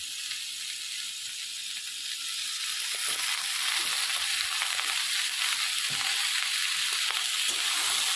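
Soya chunks, capsicum and tomato sizzling in a hot aluminium wok. The sizzle grows louder about three seconds in, with a few light clicks of the steel spatula against the pan as it stirs.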